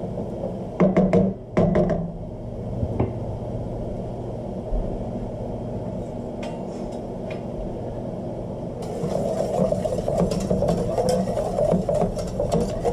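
A wooden spoon knocking and scraping against a stainless steel sauté pan of thickening bacon-and-stock sauce, over a steady low hum. About nine seconds in, a dense crackling starts as the sauce is stirred again.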